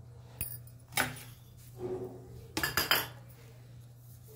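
Metal kitchen utensils and dishes clinking and knocking: a sharp clink about a second in, then a quick cluster of clinks near the three-second mark, over a steady low hum.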